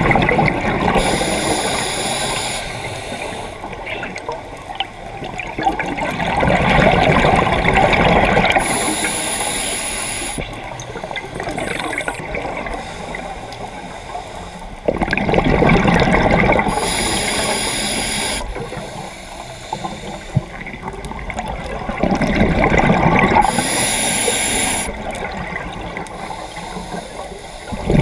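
Scuba diver breathing through a regulator underwater: a gush of exhaled bubbles alternating with a short high hiss on each inhalation, about four breaths, one every seven or eight seconds.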